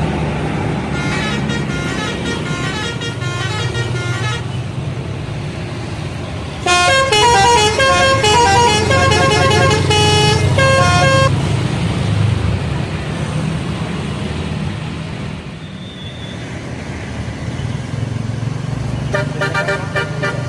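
Bus telolet horn, a multi-note musical air horn, playing a tune of short notes that step up and down in pitch, faint at first and then loud for several seconds from about seven seconds in, over the low rumble of a bus. Another burst of telolet notes starts near the end.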